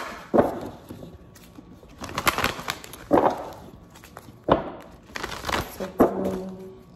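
A deck of oracle cards being shuffled by hand, with about six sharp card slaps and rustles spread a second or so apart.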